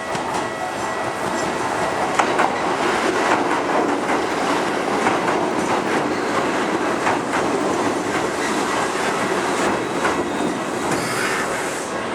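Keikyu Daishi Line electric train passing over a level crossing. Its wheels clack steadily over the rail joints and crossing, with some wheel squeal.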